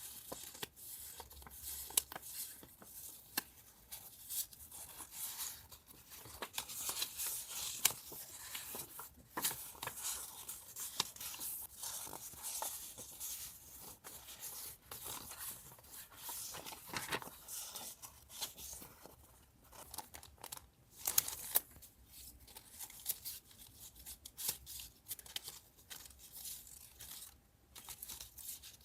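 Paper being torn and handled: irregular ripping, rustling and crinkling, with sharper, louder strokes about two seconds and twenty-one seconds in.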